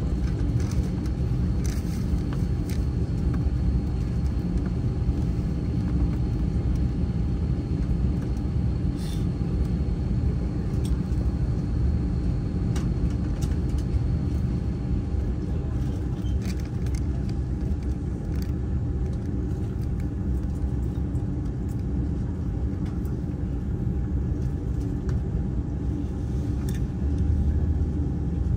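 Steady low rumble of an Airbus A330 airliner, with a faint steady whine over it and a few faint clicks. The level stays even, with no sign of the takeoff run yet.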